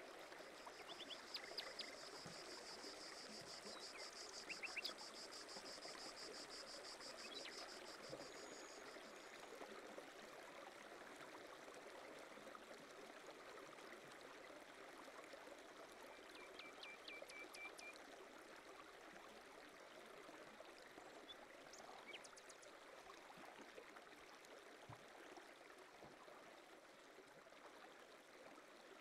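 Faint pond-shore ambience: gentle water lapping at the rocky edge. A high steady trill runs through roughly the first third, and a few short series of faint high chirps come now and then. The loon itself makes no call.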